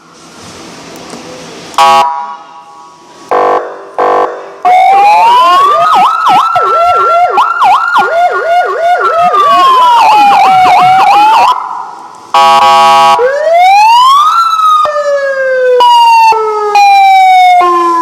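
200-watt two-tone electronic vehicle siren (S6 double-sound) cycling through its tones. Short buzzy horn blasts, then a slow wail rising and falling with a fast yelp sounding over it at the same time, then quick rising sweeps that fall back in steps.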